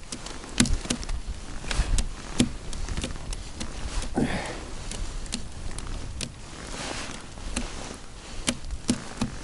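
Irregular sharp clicks and taps, with a short rustle about four seconds in: handling noise from the angler's hands and clothing moving close to a body-worn microphone.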